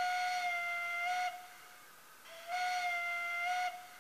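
Steam-whistle sound from the factory sound decoder of a Brawa model of the PKP Pt31 steam locomotive, played through the model's small speaker. One blast ends about a second in. A second blast of about a second and a half follows, and each blast dips slightly in pitch midway and rises again just before it stops.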